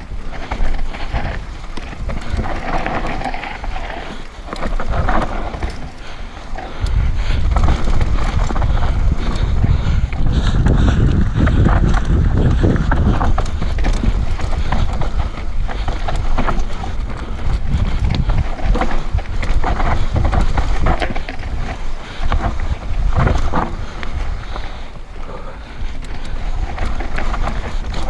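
Mountain bike descending a rough dirt trail, with wind buffeting the action camera's microphone and the bike and tyres clattering over bumps in many short rattles. The wind rumble gets much heavier about seven seconds in and stays loud.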